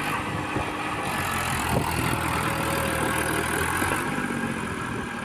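Massey Ferguson 241 DI tractor's three-cylinder diesel engine running steadily under load as it pulls a trailer through soft sand.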